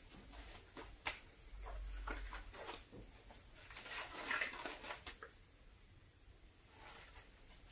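Faint rustling of a crumpled wrapper and of gloves being pulled onto the hands, with a few small clicks and taps; one sharper click about a second in and the busiest rustle around four to five seconds.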